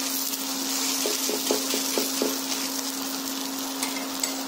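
Bread slices frying in a lightly oiled nonstick pan: a steady soft sizzle, over the steady low hum of the induction cooktop.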